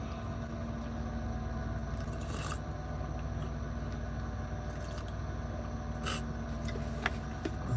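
Steady low hum inside a vehicle cabin, with a couple of short soft noises as a man sips from a stainless steel travel mug, about two and a half and six seconds in.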